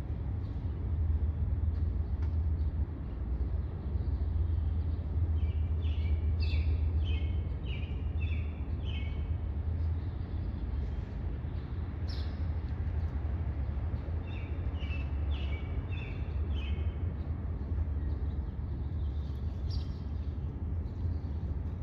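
Gulls calling in two runs of quick repeated notes, with a few single calls between, over a steady low rumble.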